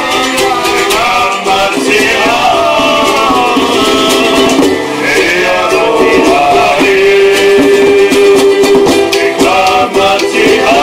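Several men singing together to a strummed ukulele and guitar, with a small hand drum tapped along in rhythm.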